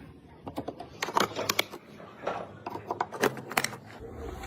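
Irregular clicks and knocks of hard computer parts being handled and fitted together during assembly, with a cluster of sharper clicks about a second in and again around three seconds in.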